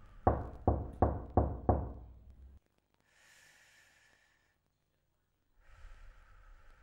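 Five sharp knocks in quick succession, about three a second, followed by quieter breathy exhales like sighs.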